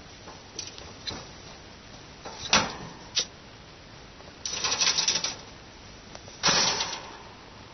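A pet rabbit grooming and making small sneezes: a scatter of short, sharp puffs and clicks, the loudest a little over two seconds in, then two crackling bursts of about a second each.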